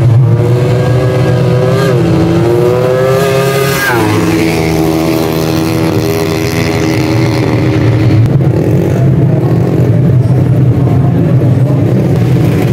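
Drag-race motorcycle engines revving hard. A pitched engine note climbs and is held for about four seconds, then drops sharply, over a loud steady low engine drone.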